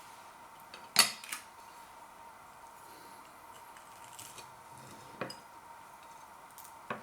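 A few sharp clinks and knocks of a plate or cutlery being handled, the loudest about a second in, with others around five seconds in and at the end, over a faint steady whine.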